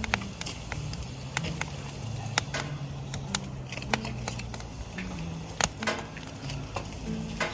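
Wood fire crackling in a fire pit, with sharp irregular pops and snaps.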